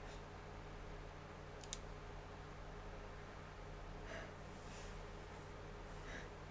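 Mostly quiet, with two faint clicks near the start and a soft, breathy intake of breath about four seconds in, as a person works up to an induced sneeze.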